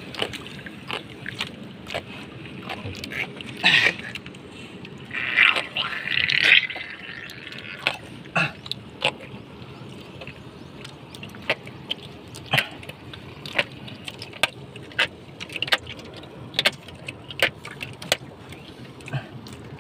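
Handling noises in a small wooden fishing boat as a large grouper caught on a handline is unhooked: scattered sharp clicks and knocks over a steady background hiss, with a few louder rustles about four and six seconds in.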